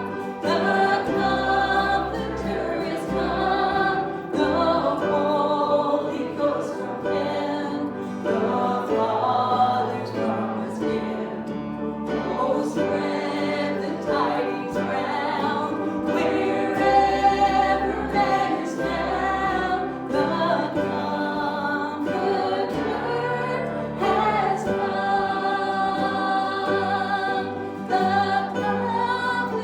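Many voices singing a worship song together over instrumental accompaniment, with low bass notes held and changing every second or two.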